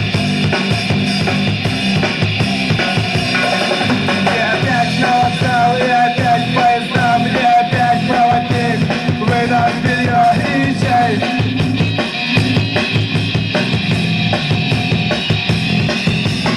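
Loud rock music with a driving drum kit and bass drum. A repeated high melodic line runs through the middle.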